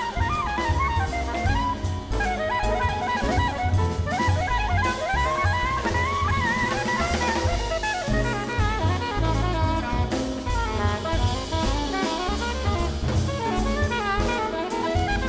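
Small jazz group playing live: a horn carries a winding melodic line over a busy drum kit.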